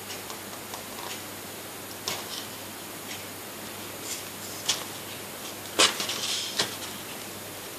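A few light taps and paper rustles from handling an activity book's glossy pages, the loudest about six seconds in, over faint room noise.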